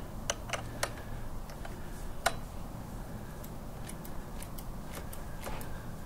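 Irregular light clicks and ticks of hand tools and brake parts being handled, with the loudest single click about two seconds in, over a low steady background hum.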